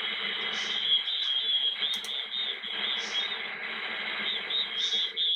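Radio receiver audio from the shack's speaker: hiss with warbling, chirping tones cut off at the top like a band-limited receiver, with a couple of short clicks about two seconds in.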